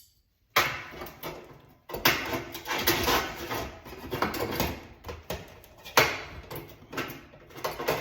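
Metal oven hinge parts clattering and knocking as they are handled and fitted against the oven frame. The knocks are irregular, with sharper hits about 2 and 6 seconds in.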